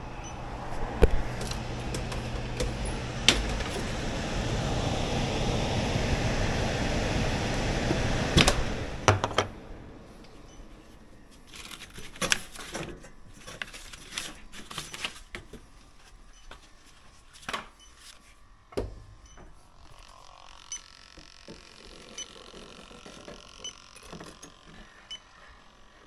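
Milwaukee cordless impact driver hammering in several short bursts at screws on an air-handler cabinet, with clicks and tool handling. Before that, a steady rushing noise with a low hum runs for about the first nine seconds and then stops.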